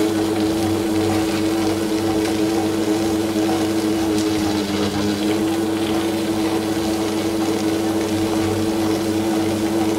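Premier Compact table-top wet grinder's electric motor running with a steady hum, turning the drum against its stone rollers, while rice batter is scooped out.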